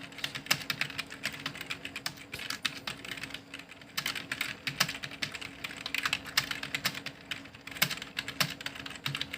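Touch typing on a computer keyboard: rapid, irregular keystrokes, several a second, as a practice passage is typed at steady speed.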